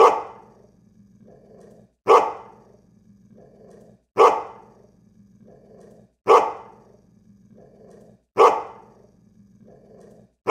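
A dog's bark repeating at an even pace, about once every two seconds, five times, with fainter sounds between the barks over a low steady hum. The identical spacing suggests a looped bark sound effect.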